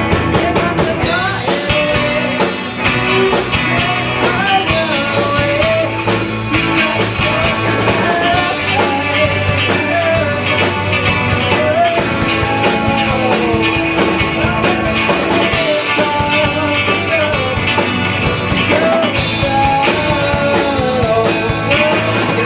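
A rock band plays a song: a lead vocal sings a wavering melody over a full band with a drum kit keeping a steady beat.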